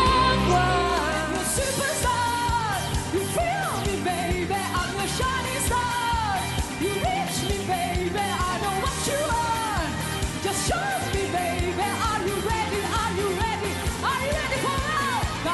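A woman singing an upbeat Turkish dance-pop song over a fast, driving drum beat. In the first second and a half the last held notes of a slow ballad ring out before the song cuts in.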